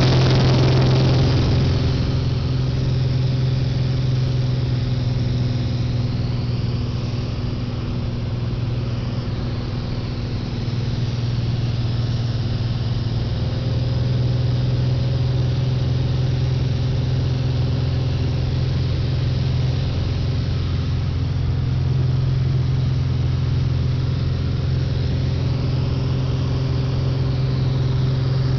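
Small propeller airplane's engine and propeller droning steadily at cruise, heard inside the cabin along with rushing air noise.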